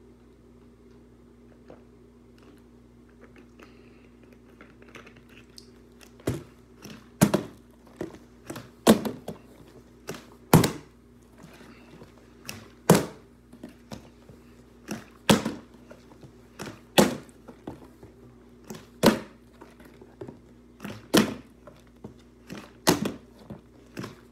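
A plastic sports-drink bottle being flipped and landing on a hardwood floor: from about six seconds in, repeated thunks come roughly every two seconds with softer knocks between. A ceiling fan hums steadily underneath.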